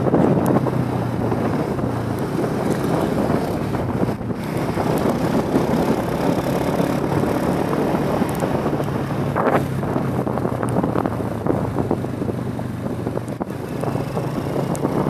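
Wind buffeting the microphone of a moving motor scooter, over the scooter's engine running at a steady cruise.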